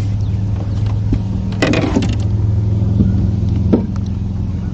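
Boat motor running with a steady low hum. About two seconds in there is a short clattering rattle as the caught largemouth bass is handled and unhooked.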